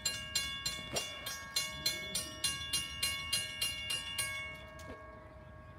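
Railroad grade-crossing warning bell ringing in an even rhythm, about three strokes a second, then stopping about four and a half seconds in.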